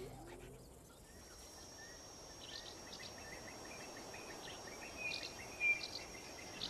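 Faint natural bush ambience: small birds chirping in quick series, over a steady high-pitched tone that starts about a second in, with one louder chirp near the end.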